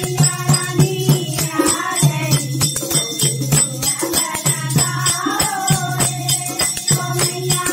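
Group of women singing a devotional bhajan together to a steady beat of hand-clapping and jingling percussion.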